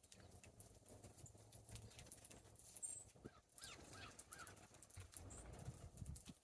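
Faint outdoor ambience of wild birds feeding in snow: scattered small ticks and taps, with one thin high whistle and then a quick run of about four short chirps a little past the middle.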